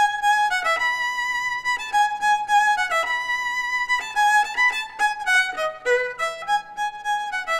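Solo violin bowed, playing a melody one note at a time: mostly held notes with a few quicker runs.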